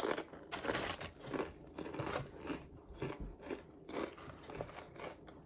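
Close-up crunching and chewing of battered fried pickles, a rapid run of crisp crunches.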